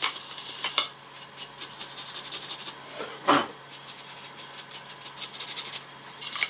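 Quick scratchy rubbing and small clicks of hands working on the dusty housing of a disassembled circular saw, with one louder thump about three seconds in.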